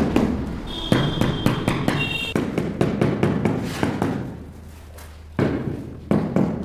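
Mallet tapping a large 2×4 ft floor tile to bed it into the mortar: rapid, evenly repeated taps, about four a second, with a lull of a second or so before a few more strikes near the end.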